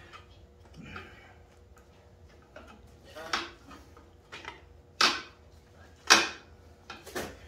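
A metal radiator guard clicking and knocking against the radiator and frame as it is wiggled and slid into place by hand: a handful of sharp metallic knocks with quieter rubbing between them, the loudest about five and six seconds in.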